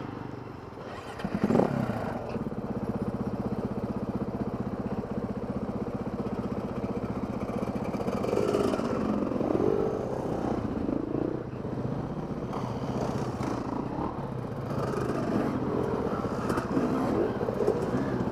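A KTM dirt bike's engine runs steadily at idle, with a short rev about a second and a half in. Other off-road motorcycles rev up and down as they ride past, around eight to eleven seconds in and again from about fifteen to seventeen seconds.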